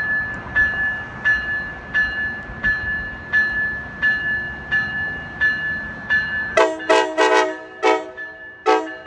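Warning bell ringing steadily, about one and a half strokes a second, as a Coaster commuter train approaches; from about two-thirds of the way in, the train's horn sounds a quick series of short blasts.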